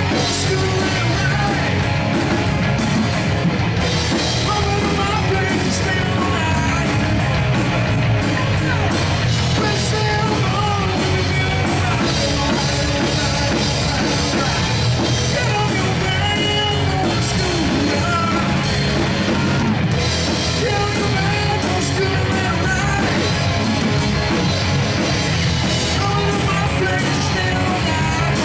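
Rock band playing live: drums, electric guitar and bass, with singing.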